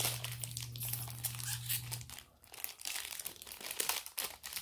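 Thin clear plastic cookie wrapper crinkling and crackling irregularly as it is peeled open by hand.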